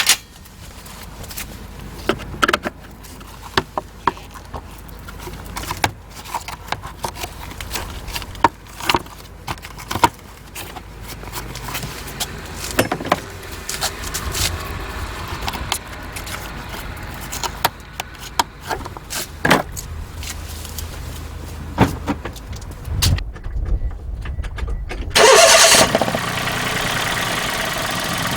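Scattered clicks and knocks of handling, then the Daihatsu Tanto Custom's 660 cc turbo three-cylinder engine cranks briefly on the starter, fires with a loud flare of revs and settles into a steady idle near the end. This is the first start on freshly fitted spark plugs.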